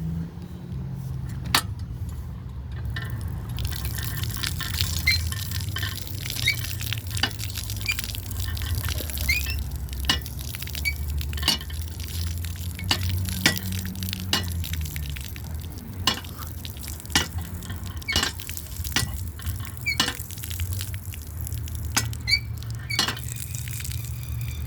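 Water trickling and dripping from an old pump tap, with many sharp, irregular clicks and taps.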